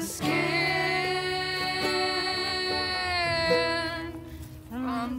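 A singing voice holds one long, steady note for about four seconds over plucked acoustic guitar and ukulele, then drops away briefly before a new sung phrase starts near the end.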